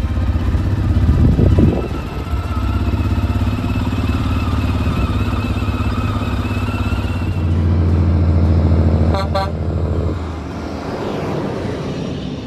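A heavy diesel engine of farm machinery runs steadily and swells louder twice, briefly about a second in and again from about seven to ten seconds. A brief, rapid high-pitched pulsing sounds about nine seconds in.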